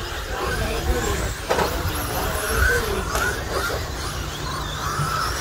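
Electric RC stadium trucks with 13.5-turn brushless motors racing on a dirt track: motor and gear whine glides up and down in pitch as the trucks accelerate and brake, over a steady low rumble, with a sharp knock about a second and a half in.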